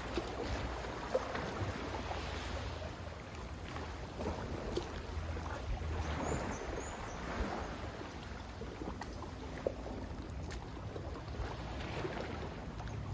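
Sea waves washing in and drawing back, swelling about three times, over a steady low rumble, with a few faint sharp ticks.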